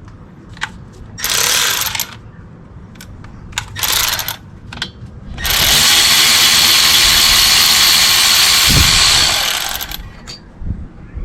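A cordless power tool spins out the brake caliper bolts: two short bursts, then one longer steady run of about four seconds with a high whine in it.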